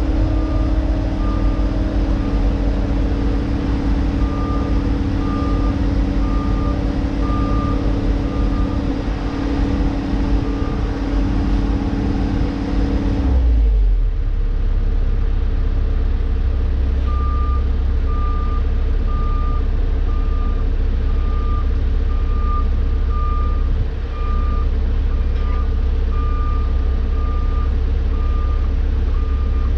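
Diesel engine of a Tigercat log loader running steadily, heard from inside its cab; about halfway through its higher hum drops away, leaving a low rumble. Over it a log truck's backup alarm beeps about once a second, pausing now and then.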